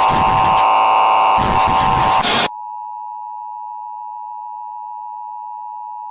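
Harsh, loud electronic static shot through with steady whining tones, the mock broadcast-interference noise of a fan-made emergency alert. About two and a half seconds in it cuts off abruptly to a steady, quieter electronic tone of two close pitches near 1 kHz.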